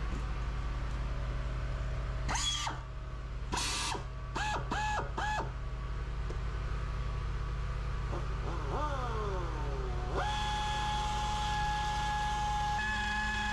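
Pneumatic tire buffer whining up in short blips of the trigger, five quick bursts whose pitch rises each time, then running steadily from about ten seconds in as the inner liner around the puncture is buffed. A steady low machinery hum runs underneath.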